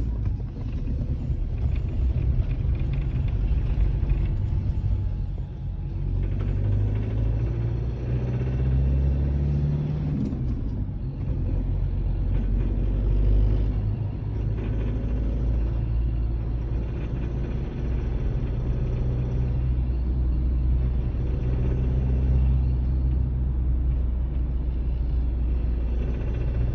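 Four-cylinder diesel car engine pulling under acceleration with a loud, heavy low rumble, rising in pitch about a third of the way in. It is the abnormal noise that appears when accelerating, which the owner links to freshly overhauled injectors whose fuel return lines leak while driving.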